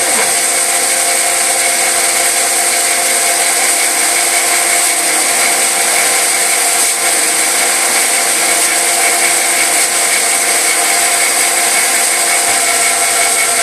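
CNC machine spindle running steadily under cut: a continuous whine with fixed high and middle tones over dense cutting noise.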